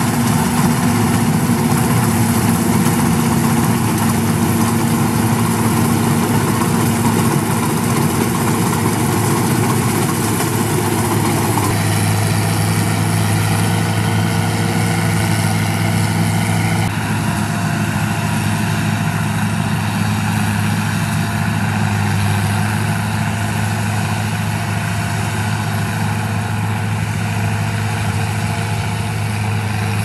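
CLAAS Crop Tiger 30 combine harvester running steadily while cutting rice, its engine and machinery making a loud, even drone.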